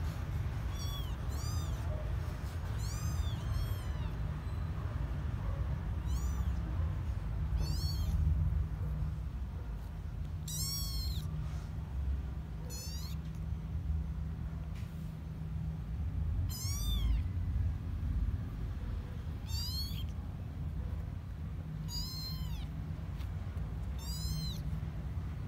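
Young kittens mewing: about a dozen short, high-pitched mews, each rising and falling in pitch, spaced a second or a few apart, over a steady low rumble.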